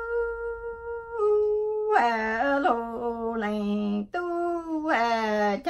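A woman's unaccompanied voice chanting Hmong lug txaj sung poetry. A long held note drops in pitch about a second in, then short sung syllables slide downward, with brief breaks about four seconds in and near the end.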